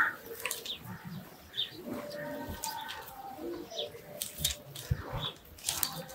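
Doves cooing faintly in the background, with a few soft clicks scattered through.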